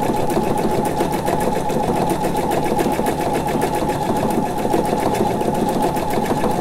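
Pfaff Expression 710 computerized sewing machine running steadily at high speed, a rapid, even patter of needle strokes as it sews out a programmed decorative stitch sequence on its own.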